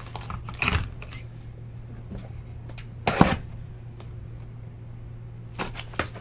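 Cardboard shipping case being handled and its top flaps opened: scattered scrapes, taps and knocks of cardboard, the loudest about three seconds in and a few more near the end, over a steady low hum.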